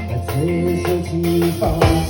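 A live band playing amplified music: held bass and melody notes that step from pitch to pitch, over light percussion hits.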